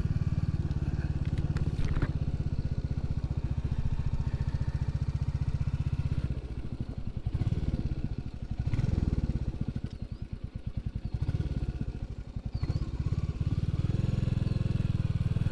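Royal Enfield Classic 350's single-cylinder engine running as the motorcycle rides along. About six seconds in, the engine note turns slower and uneven, rising and falling for several seconds, then it settles back to a steady run near the end.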